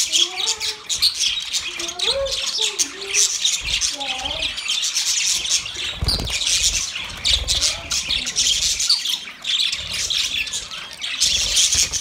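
A flock of budgerigars chattering continuously, a dense mix of many short high chirps and lower warbling calls, with a low thump about halfway through.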